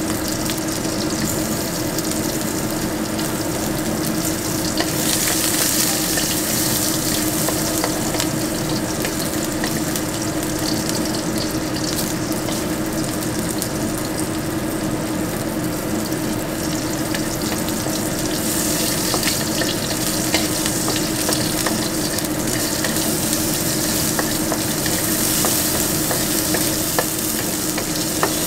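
Vegetables sizzling in hot oil in a wok, stirred with a wooden spatula that scrapes and taps the pan. The sizzle grows stronger about five seconds in and again from about eighteen seconds, over a steady low hum.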